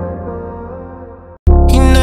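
Background music fading out, a brief silent gap, then a new music track starting abruptly and loudly about one and a half seconds in.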